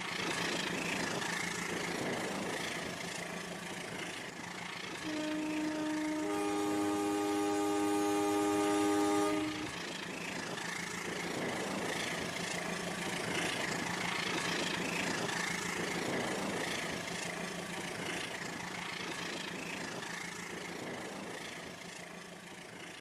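Battery-powered Rail King toy train running on its track, a steady whirring, rattling motor sound with a low hum. About five seconds in, its built-in speaker plays a train-horn effect, a chord of steady tones lasting about four seconds.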